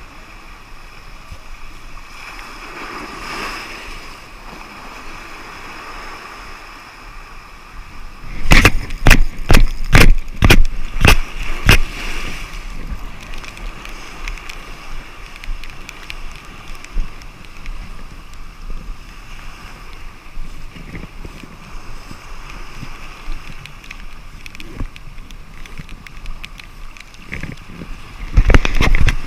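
Surf washing over rocks and wind on the microphone, with a spinning reel being wound in. From about eight to twelve seconds in comes a quick run of loud knocks, roughly two a second, from handling right at the microphone, and a few more come at the very end.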